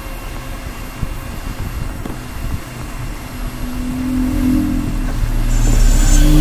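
Hot air rework gun blowing a steady rush of air onto a phone motherboard, with a low rumble that grows louder from about four seconds in. A few steady tones join in during the second half.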